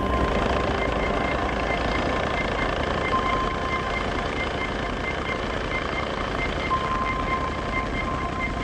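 Helicopter in flight: a steady rotor and engine noise, with a faint high-pitched tone pulsing about four times a second.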